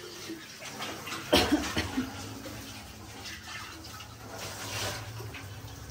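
Kitchen sounds: a sudden clatter of a utensil or pot about a second and a half in, then a few smaller knocks over a steady hiss.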